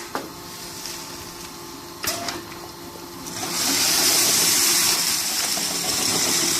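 Auger filler with bag clamp: a few sharp clacks as the bag clamp closes on the plastic bag, then about three and a half seconds in the filler starts and a loud steady hiss of powder pouring into the bag takes over, over the steady hum of the running machinery.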